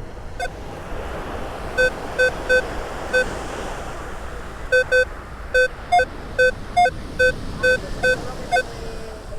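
Minelab Manticore metal detector giving short, repeated beeps over a buried target reading in the low 60s. Most beeps are at one pitch and a few are slightly higher. They come in irregular runs, over a steady wash of surf.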